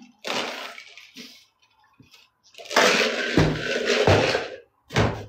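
A person chugging coffee from a plastic cup, gulping and slurping the liquid down. About three seconds in comes a loud gurgling rush lasting nearly two seconds, and a short sharp burst follows near the end.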